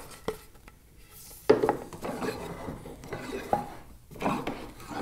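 Bench chisel chopping and scraping out the waste between dovetail tails in a hardwood board: a sharp knock about a second and a half in, then a run of scraping, rubbing and clicking of steel on wood.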